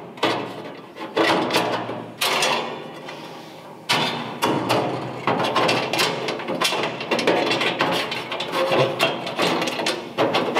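Stainless-steel flame tamers on a gas grill clinking and clanking against the steel firebox as they are slid in over the burners and dropped into their notches. A quick run of sharp metal knocks, each with a short ring.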